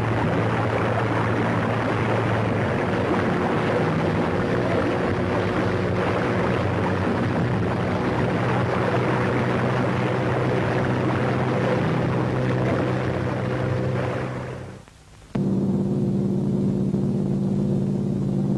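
A boat engine drones steadily under a rushing wash of noise and fades away about 14 seconds in. After a short gap, a different, higher steady drone cuts in abruptly: aircraft engines heard from inside the cabin.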